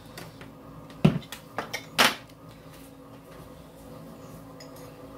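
Two sharp plastic knocks, about a second and two seconds in, with a few lighter clicks: the clear plastic lid of an electric coffee grinder being lifted off and set down on a countertop, the grinder switched off.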